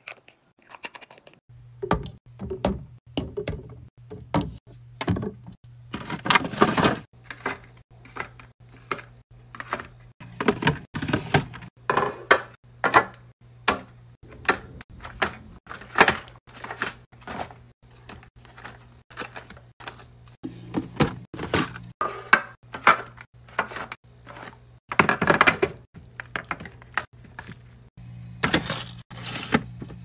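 Glass juice bottles being capped, and yogurt cups, pouches and drink bottles knocked and set down in clear plastic fridge bins: a run of irregular clicks, taps and light thuds, with a low steady hum underneath.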